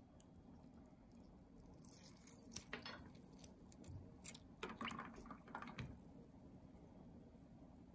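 A lime wedge squeezed by hand over a glass of ice: faint wet squishing and dripping, a cluster of small crackles from about two seconds in to about six seconds in.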